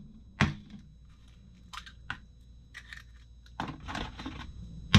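Hen's eggs being cracked open by hand: a sharp tap of shell about half a second in, a few light clicks, then a longer crackle of shell breaking apart near the end.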